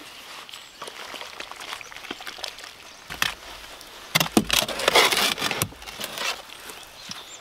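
Shovel scraping and turning wet concrete in a metal wheelbarrow: light scrapes at first, then a few louder scraping strokes about four to six seconds in.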